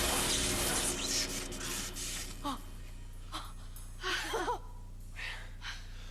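A loud rushing effect fades out over the first second or two. After it come a few short, breathy gasps and exhalations from a person, one with a brief wavering voiced catch.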